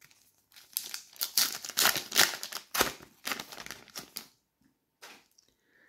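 Foil trading-card sachet (Panini FIFA 365 Adrenalyn XL) being torn open and crinkled in the hands as the cards are slid out: a quick flurry of crackling and rustling that stops about four seconds in.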